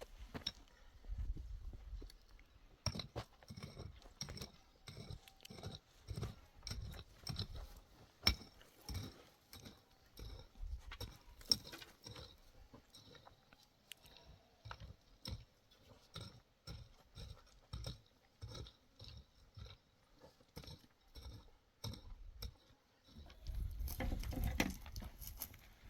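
Kitchen preparation sounds: a run of irregular soft knocks and light clinks, about one or two a second, with a denser rustling, clattering stretch near the end.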